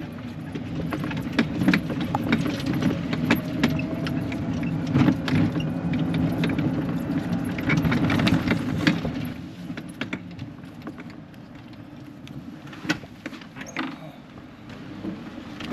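Golf cart driving along, a steady low rumble with clattering and rattling over it, likely the golf clubs jostling in their bag; the rumble drops away about nine seconds in, leaving scattered rattles.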